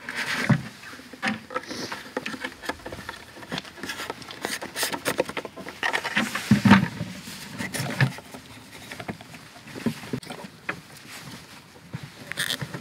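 Thin PVC pipe and a plastic 90-degree elbow being handled and pushed together over a plastic bucket: irregular clicks, knocks and rubbing of hard plastic.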